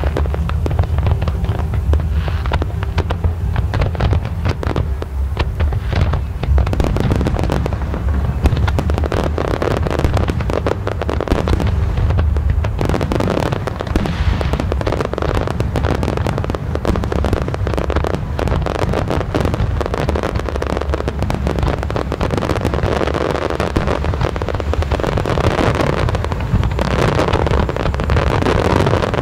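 Aerial fireworks display: a dense run of overlapping bangs and crackles over a steady low rumble. The bursts thin out a little near the end.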